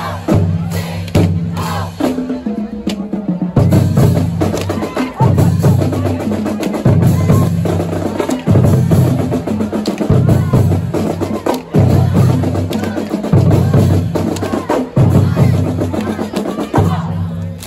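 Marching band playing: a drumline of bass drums and snare drums keeps a driving beat under a low brass riff that repeats about every second and a half. The band stops near the end.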